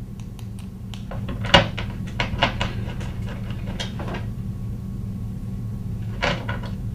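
Small clicks and knocks of assembly hardware being handled: screws, an Allen wrench and a caster wheel bracket tapping against the robot's base platform. The sharpest knock comes about one and a half seconds in, with a few more near the end, over a steady low hum.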